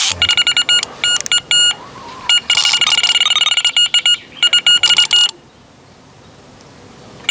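Electronic carp bite alarm beeping in rapid runs of single-pitch beeps, stopping about two-thirds of the way through, with a few more beeps right at the end. The fast beeping is the sign of line being pulled through the alarm: a fish taking the bait.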